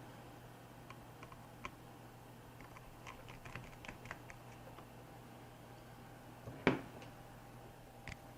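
Faint scattered taps and clicks of a felt-tip pen and fingers working over a laptop motherboard while its screws are being marked, with one sharper click about two-thirds of the way through and another near the end.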